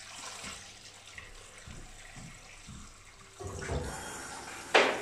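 Water poured from a stainless steel pot into a large stainless steel stockpot onto soup chickens and chopped vegetables: a steady splashing pour that grows heavier about three and a half seconds in, with one short, louder hit near the end.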